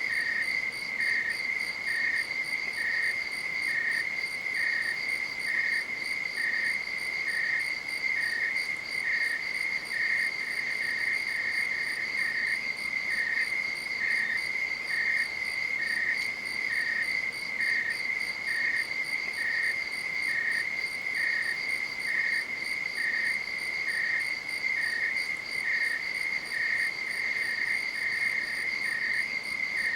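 Night insects calling: a steady, high, unbroken trill, with a second insect chirping about once a second.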